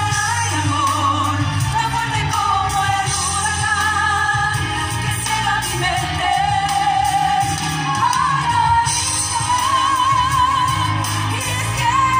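Romantic pop ballad playing over a hall's sound system: a melody line with strong vibrato over a steady bass, with no words sung.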